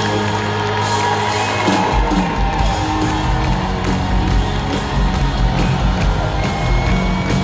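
Live country band playing in an arena, recorded from the audience. A held chord gives way about two seconds in to a steady beat of heavy drum and bass, with the crowd whooping and cheering over it.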